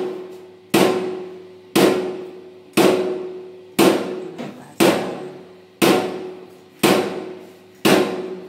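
Loud, evenly spaced mechanical knocks, about one a second, each ringing out briefly, over a faint steady hum. This is the rhythm of a cement-mortar jolting table dropping a prism mould to compact it.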